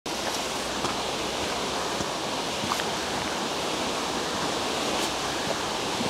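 River water rushing steadily, an even hiss of flowing water.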